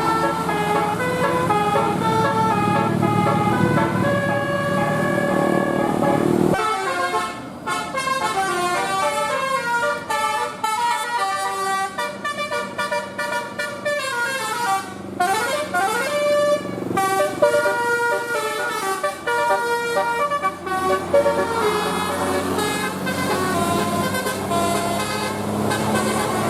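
Bus 'basuri' telolet horn, a multi-tone musical air horn, playing a tune of stepped notes, with a few notes sliding upward a little past halfway. A low engine rumble runs under the horn for the first six seconds or so.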